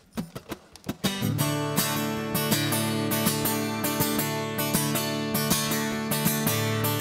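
Instrumental song intro: a few light rhythmic clicks, then about a second in a strummed acoustic guitar comes in with full, sustained chords on a steady beat.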